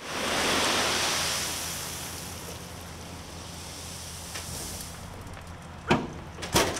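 A load of large round stone pouring out of a tipped dump truck bed: a loud rushing hiss that starts suddenly and fades over a few seconds, with the truck's engine running steadily underneath. A couple of sharp knocks near the end.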